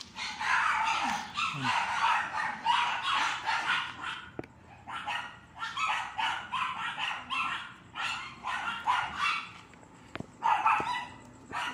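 A dog barking over and over in short, high-pitched barks, about two a second, with brief pauses twice.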